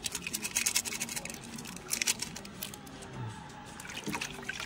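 Quick, crisp crackling and scratching clicks from fuchka being handled and prepared: the thin fried shells are cracked open and filled.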